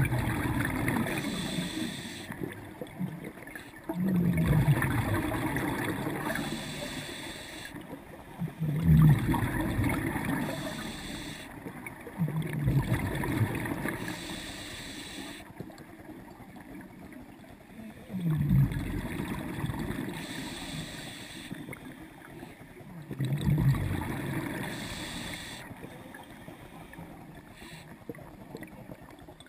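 Scuba breathing heard underwater through a regulator: a gurgling rush of exhaled bubbles about every four to five seconds, six times, each fading away, with a hiss of inhalation between them.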